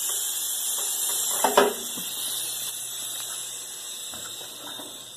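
Air hissing steadily out of a trailer tire's open valve stem with the valve core removed, fading slowly as the tire deflates. A brief short sound comes about a second and a half in.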